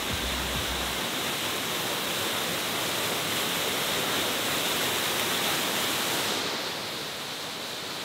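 Steady rush of water falling down a mountain waterfall, an even hiss with no breaks. The high end thins slightly near the end.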